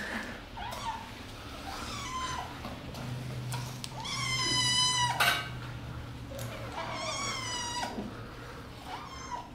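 Cats meowing again and again, about five or six separate calls, the longest and loudest one in the middle.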